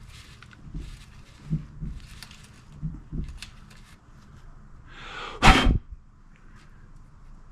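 Dull knocks of hand tools working on a bicycle's bottom bracket, two quick pairs of them, then a loud brief rushing noise about five seconds in.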